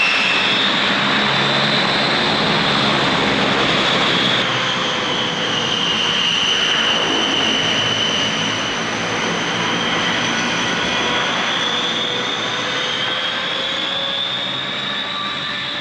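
Vickers Viscount's Rolls-Royce Dart turboprop engines running with their high, steady whine, which drifts slowly up and down in pitch. The sound changes slightly about four seconds in, and it eases off a little near the end.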